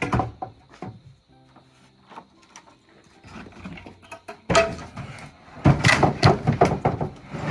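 Background music with a few held notes, over wooden knocks and clattering: a sharp knock at the start, then a dense run of clattering from about halfway on, as wooden boards are handled and moved.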